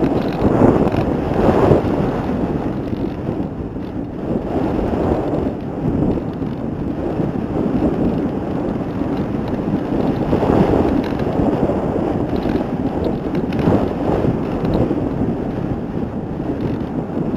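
Wind buffeting the microphone of a camera riding on a flying RC aircraft: a rushing noise, mostly low in pitch, that swells and fades unevenly.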